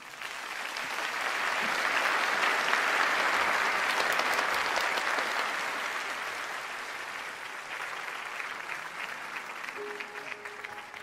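Theatre audience applauding, swelling over the first two seconds and then slowly dying down into scattered claps. A soft held musical note comes in near the end.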